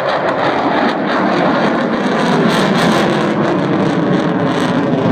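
Eurofighter Typhoon fighter jet's twin turbofan engines, loud and steady.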